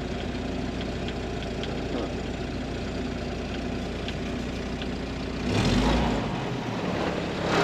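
1942 Ford GPW Jeep's four-cylinder flathead engine idling steadily. About five and a half seconds in, a brief louder rush of noise, lasting under a second, rides over it.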